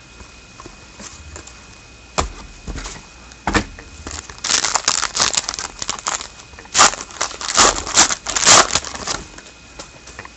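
A foil trading-card pack wrapper being torn open and crinkled, with a couple of knocks first as the pack is handled.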